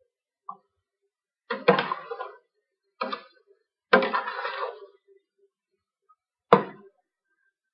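Metal ladle stirring curry in a stainless steel pot: several short bursts of scraping and clinking against the pot's sides, then a single sharp clink near the end.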